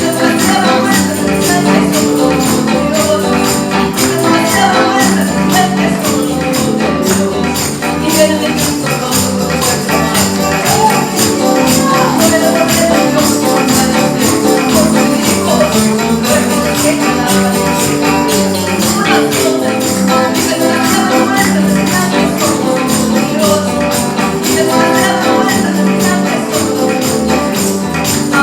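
Upbeat Christian praise music with a tambourine jingling steadily on the beat.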